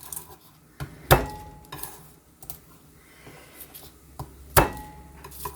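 Garlic cloves being pounded on the counter to crack their skins loose: two hard knocks, about a second in and near the end, each leaving a brief ringing tone, with lighter clinks between.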